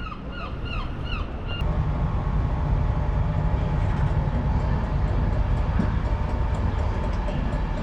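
Train running with a steady low rumble and a faint steady whine, growing slightly louder; it sets in abruptly about one and a half seconds in, after a run of quick high chirps.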